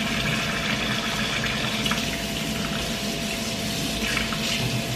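Kitchen faucet running steadily into the sink while soapy hands are rubbed together and then rinsed under the stream near the end.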